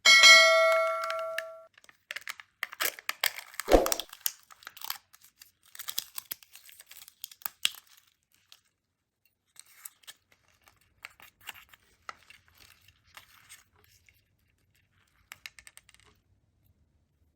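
A ringing ding at the start, then the foil and plastic wrapping of Kinder Joy eggs being torn and crinkled in short bursts, with one knock about four seconds in. The handling thins out and stops near the end.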